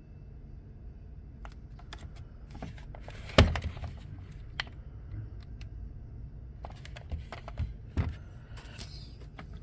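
Scattered plastic clicks and knocks from a power-tool battery adapter and battery being handled, with one sharp knock about three and a half seconds in and a few more near the end.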